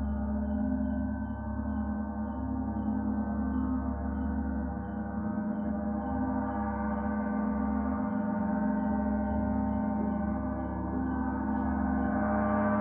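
Gong ringing in a long sustained wash of many overlapping steady tones. Faint insect chirps repeat evenly, about three a second, over it and fade out in the second half.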